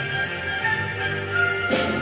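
Christmas music with jingle bells ringing, and a bright shake of bells near the end.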